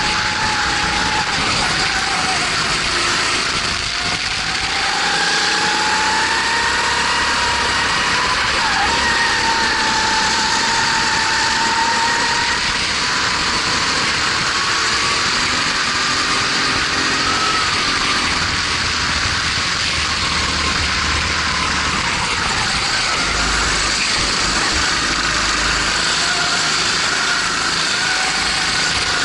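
Racing kart's single-cylinder Honda GX270 four-stroke engine running hard, its pitch dipping when the revs drop for a corner and climbing again on the straights, with steady wind noise over the onboard microphone.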